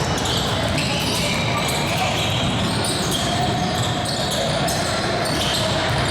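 Basketball game sounds in a gymnasium: a basketball bouncing on the court under a steady din of indistinct voices.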